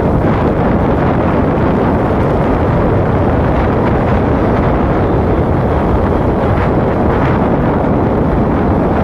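Steady, loud wind rush on the microphone from a moving motorcycle, mixed with the bike's running and road noise.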